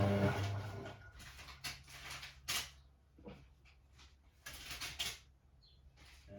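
Hoover Sportswear 1300 washing machine: a steady mechanical hum cuts out just after the start. A few seconds of soft, scattered knocks and swishes follow, and the hum starts up again at the very end.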